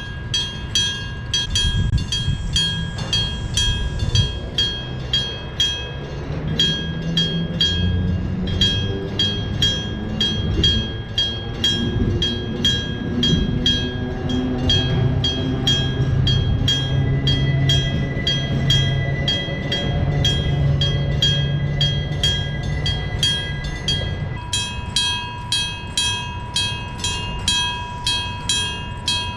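Electric-bell (denshō-type) railway crossing bell clanging about twice a second. A train with nose-suspended (tsurikake) traction motors passes, its motor and gear growl rising in pitch, then levelling off and stopping about five seconds before the end.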